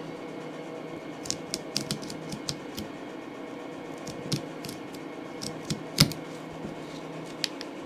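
Small, irregular clicks and snaps of a razor blade cutting old stitching out of a worn leather steering-wheel cover, with one sharper click about six seconds in. A steady low hum runs underneath.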